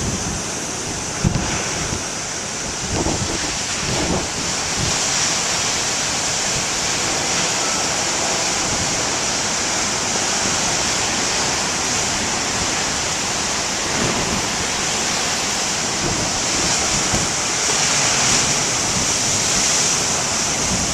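Big ocean surf: heavy waves breaking and washing ashore in a steady roar.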